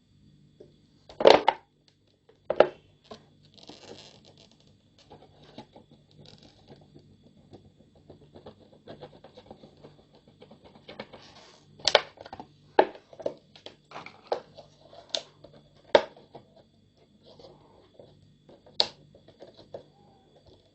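Thin plastic from a cut Pepsi bottle crackling and clicking as it is handled and pressed while its edges are fused with a soldering iron, in scattered irregular snaps, a few sharp ones standing out.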